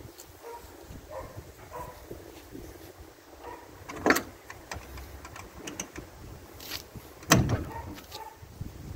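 Two sharp clunks, about three seconds apart, the second heavier, with small clicks and rattles between them as the Astus 16.1 trimaran's telescopic float arm is handled and worked. Wind rumbles on the microphone underneath.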